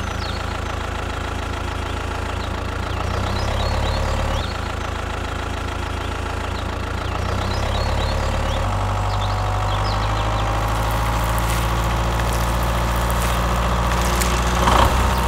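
Tractor engine running steadily with a low, even rumble. Its pitch shifts slightly a few times.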